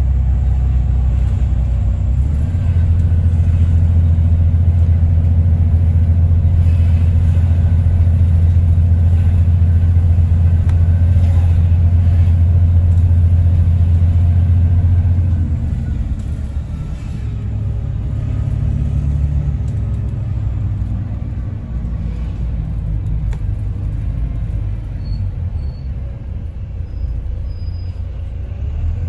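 Diesel bus engine and drivetrain heard from inside the moving bus: a heavy steady drone that eases off and turns more uneven about halfway through, with a faint transmission whine gliding in pitch.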